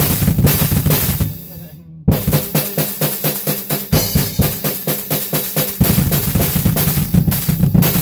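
Acoustic drum kit played with sticks: snare and cymbal hits, a short dip just before two seconds in, then a fast even run of snare strokes. From about six seconds in the bass drum comes in under it with rapid double-pedal kicks.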